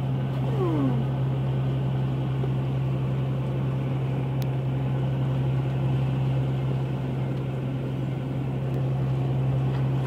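Steady low hum of a squid-fishing boat's machinery, with a constant rush of noise over it. A brief falling cry, like a voice, sounds about half a second in.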